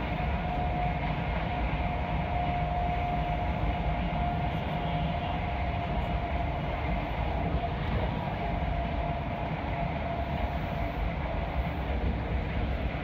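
Running noise inside a moving train: a steady rumble from the wheels on the track, with a steady whine over it that weakens near the end.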